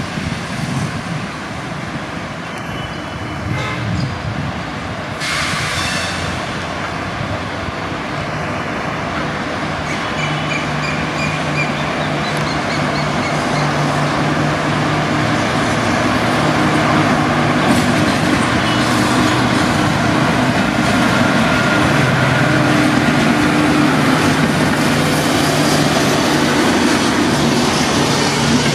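WAP-4 electric locomotive hauling a passenger express as it pulls away from a station. Its steady electrical hum grows louder as it comes closer, and near the end its coaches roll past.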